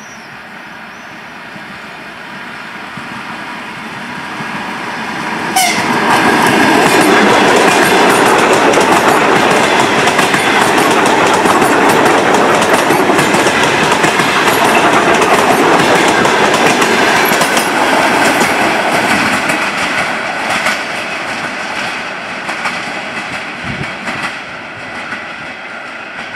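ER9M electric multiple unit approaching and running past close by. The noise rises steadily, jumps suddenly to full loudness about five and a half seconds in as the train reaches the microphone, then goes on as a dense clatter of wheels over rail joints for about fifteen seconds before slowly fading.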